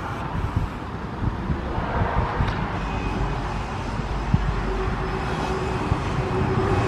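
Road traffic: a motor vehicle running along the road, with a steady hum that comes in about four seconds in.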